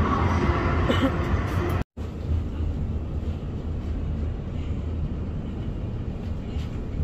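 Steady low rumble and whoosh of a moving glass-walled lift, heard from inside the car, broken by a brief dropout about two seconds in.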